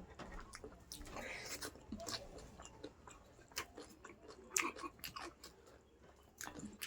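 A person chewing and biting food, a string of short, irregular mouth clicks.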